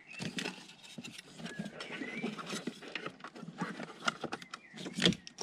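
Plastic wiring-harness connectors and loose wires being handled and pushed into an engine electronics box: a string of irregular light clicks and rattles, with a sharper click about five seconds in.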